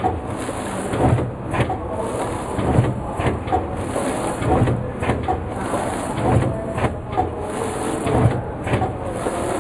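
BBM FP500HSE automatic film bundling machine running, its conveyor belts carrying flat cardboard boxes, with repeated clacks and a low thump about every two seconds.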